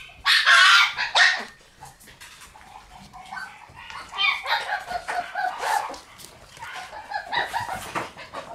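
Shiba Inu puppies yapping as they play-fight: two loud, high yaps in the first second and a half, then quieter, shorter yips.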